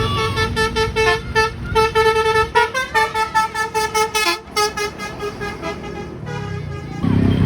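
Bus 'telolet' musical air horn playing a quick run of short, repeated notes, about four or five a second, stepping between a few pitches. Just before the end a louder, noisier sound comes in.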